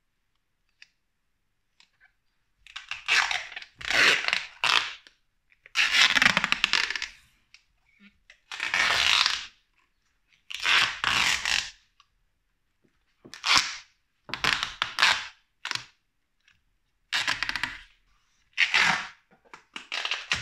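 Masking tape being ripped off the roll and wrapped around a block of battery cells: about a dozen separate rasping rips, each up to a second or so long, starting about three seconds in.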